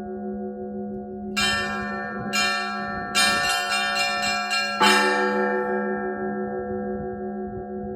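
Russian church bells being rung. A larger bell's hum rings on underneath, while smaller high bells are struck once about a second and a half in, again a second later, then in a quick run of strokes that ends in a loud final stroke near five seconds.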